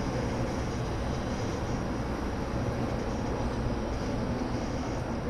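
Steady low rumble with a hiss above it, even throughout with no distinct events: background room noise in a large hall.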